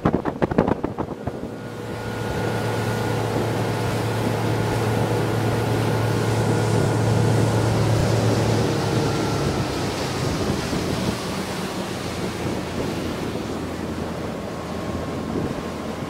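Boat motor running with wind and water rushing past. The motor settles into a steady hum about two seconds in and eases off a little past halfway.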